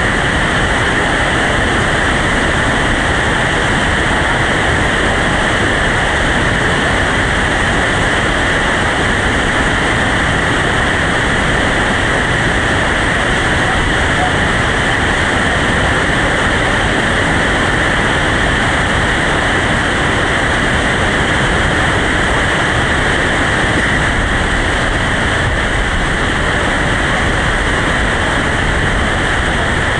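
Whitewater rapids rushing loudly and steadily, an unbroken wash of water noise.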